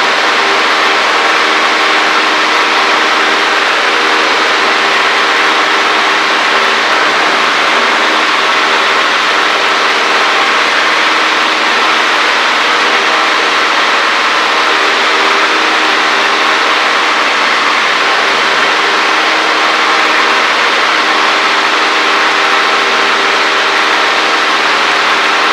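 Cessna 152's four-cylinder Lycoming engine and propeller running steadily, heard from inside the cockpit as a constant drone with an even hum beneath a wide rush of noise.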